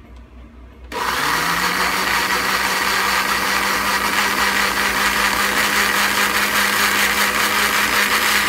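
Tough Mama electric blender switched on about a second in, its motor spinning up and then running steadily at full speed while puréeing cooked apple chunks.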